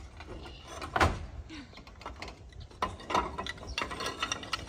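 Roof tiles knocking and clinking as they are handled and shifted: one sharp knock about a second in, then a cluster of clattering knocks about three seconds in, with lighter clicks between.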